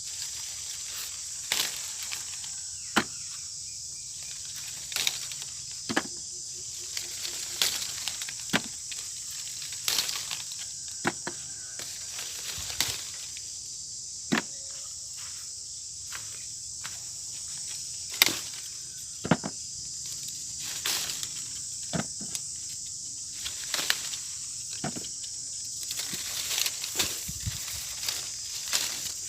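Steady, high-pitched chorus of insects, with scattered sharp clicks, knocks and rustles of handling.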